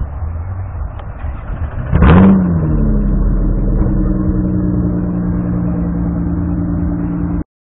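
A car engine revved once about two seconds in, then dropping back and holding a steady idle. The sound cuts off suddenly near the end.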